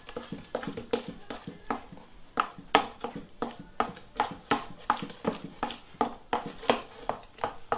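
Clear-glue slime, activated with baking soda solution, being mixed in a bowl: a run of short, sticky squelching clicks, about three a second.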